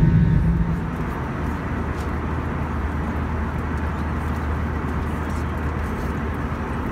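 Steady cabin noise of an Airbus A320 in flight: an even rush of engine and airflow noise over a low hum, with a few faint clicks. Music fades out about a second in.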